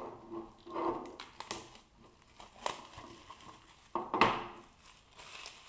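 Plastic shrink wrap crinkling as it is peeled off a metal Pokémon trading card tin, in several short crinkles with the loudest about four seconds in.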